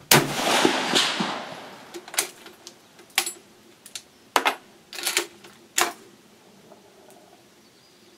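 A single shot from an 1898 Krag bolt-action rifle in .30-40 Krag, its report trailing off over about a second and a half. It is followed by a run of sharp metallic clicks, about six in four seconds, as the bolt is worked.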